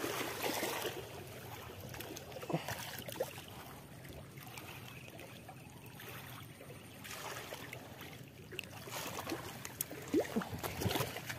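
Small lake waves lapping against the rocks at the water's edge, an even watery wash with a few faint knocks and rustles from handling.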